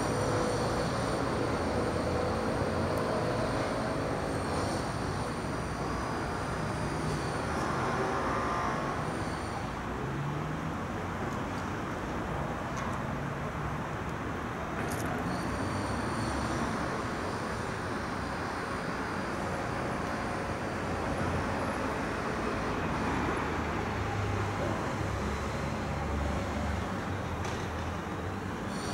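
Steady rumble of distant city traffic, with faint rail noise from a train in the first few seconds.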